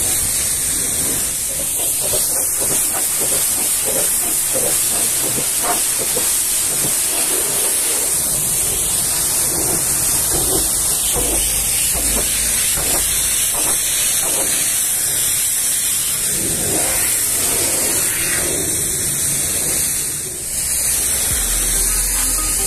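Pressure-washer foam spray hissing steadily against the side panel of a truck trailer, with a brief dip in level near the end.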